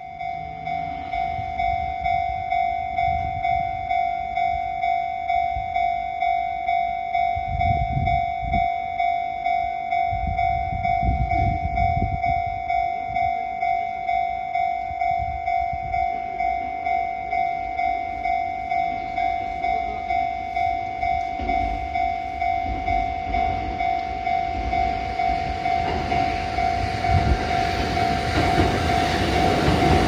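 Level crossing's electronic warning bell ringing steadily, about two strokes a second. Near the end the rumble of a two-car Kotoden 1100-series electric train approaching rises under the bell.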